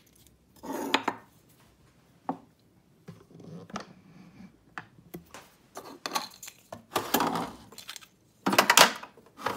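Handling knocks and scrapes: a WDT tool set down on a wooden counter, then a stainless-steel drawer slid open and shut with a metal clatter, the loudest clatter near the end.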